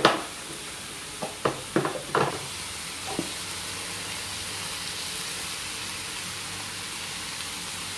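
Shredded fish and chilli frying in a metal wok, sizzling steadily, with several sharp clicks and scrapes of the metal spatula against the wok in the first three seconds, the loudest at the very start.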